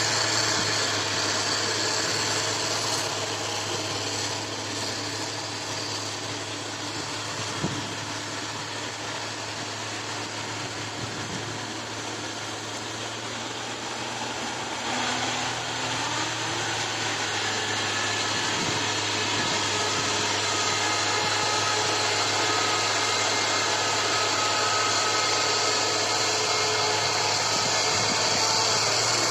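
John Deere combine harvester's engine and machinery running with a steady mechanical hum, dipping a little in level midway before rising again.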